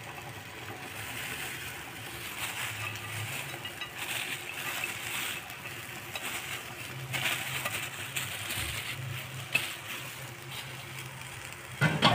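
Fresh bean sprouts being tipped into a wok of simmering broth: soft, irregular rustling and crackling with scattered light clicks.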